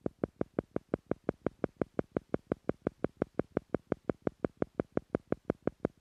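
Theta-frequency meditation sound: short electronic tone pulses repeating evenly at about five a second, a brainwave-entrainment beat meant to slow the listener toward the theta level.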